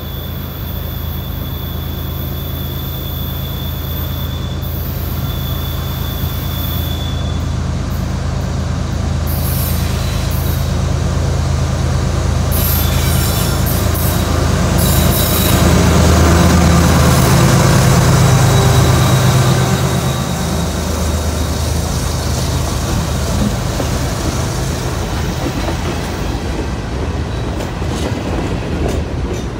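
CSX freight train led by GE ES44AH diesel-electric locomotives approaching and passing. The locomotives' steady diesel drone grows louder to its loudest about two-thirds of the way through and falls off as they go by, leaving the freight cars rolling past. A thin high wheel squeal runs through the first several seconds.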